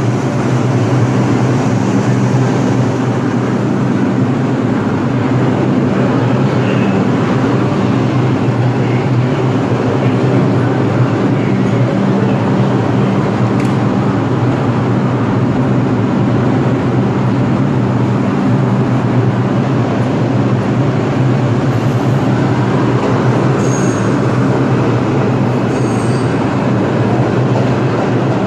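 New York City subway 4 train at a station platform: steady loud rumble and hum of the stainless-steel cars, with a few faint brief high squeals near the end.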